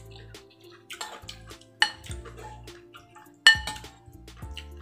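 Metal spoon and fork clinking and scraping against a ceramic soup bowl. Two sharp, ringing clinks come about two seconds and three and a half seconds in, among smaller clicks.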